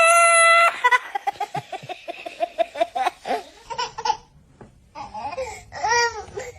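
A baby laughing in quick repeated bursts, right after a loud, high-pitched, held squeal at the very start that lasts under a second.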